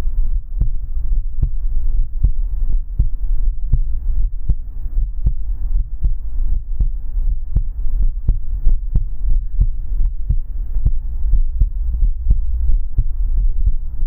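Human heartbeat, close-miked: a regular run of low, muffled thumps, about two a second, over a steady low hum.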